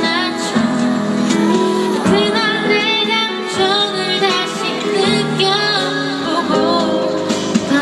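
A woman singing a slow Korean pop ballad live over a backing track, amplified through a PA system.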